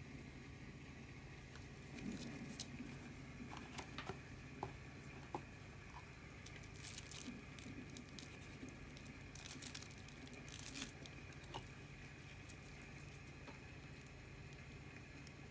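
Faint rustling, crinkling and tearing of packaging being handled during an unboxing, with scattered small clicks, over a steady low hum.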